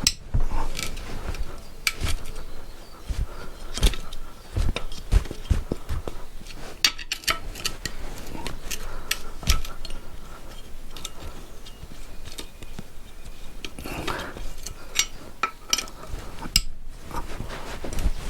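Hand tools and metal parts of a Benelli motorcycle engine clinking and knocking at irregular intervals as the engine is taken apart.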